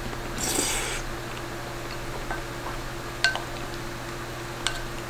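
A short slurp from a spoonful of food, then a few light clicks of a spoon against the bowl, the loudest a little after three seconds in.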